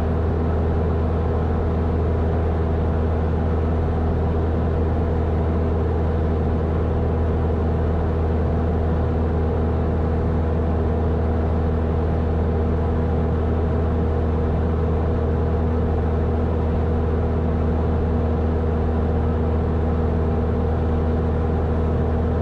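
Grumman AA-5's single piston engine and propeller droning steadily from inside the cabin, at an even, unchanging power setting while the aircraft descends on final approach.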